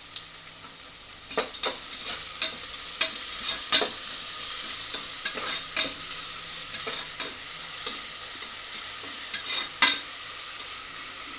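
Chopped onions and curry leaves sizzling in oil in a pressure cooker while being stirred, the utensil clicking and scraping against the pot a dozen or so times at irregular intervals.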